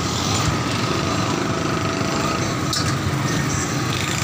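Steady small-engine rumble with a faint light click about two and a half seconds in.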